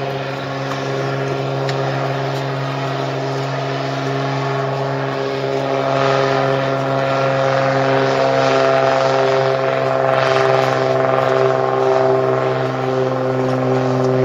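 Cessna 185 amphibian's six-cylinder piston engine and propeller at full power on a water take-off run: a steady, even-pitched drone that grows louder from about six seconds in as the floatplane comes past close by.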